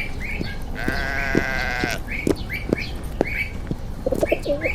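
A single wavering animal bleat, about a second long, as a picture-book sound effect. Under it run short chirps and soft knocks that repeat about twice a second.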